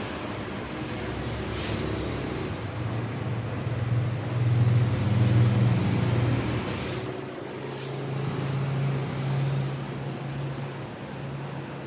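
Steady hiss of running air-conditioner airflow, with the low hum of passing road vehicles swelling and fading twice.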